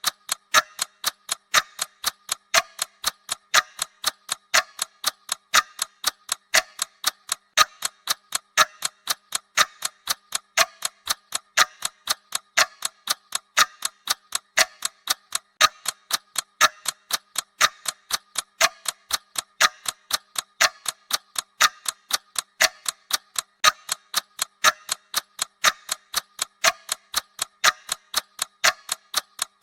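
Bomb countdown timer's ticking sound effect: a quick, steady run of sharp, even clock-like ticks.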